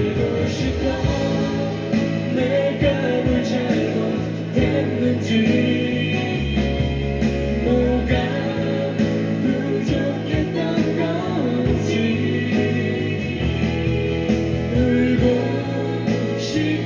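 Live pop band music: a ballad played on bass, drums, guitars and keyboards, with singing over it.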